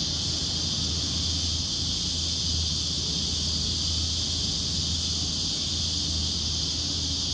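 Steady high-pitched insect chorus with a low steady hum underneath.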